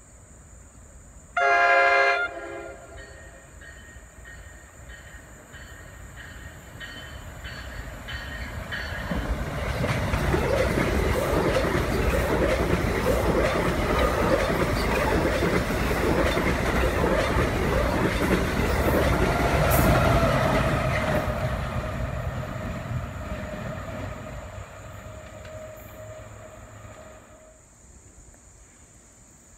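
New Jersey Transit train horn sounding one short blast, followed by the train running past: the rumble and rail noise build to a peak and then fade away.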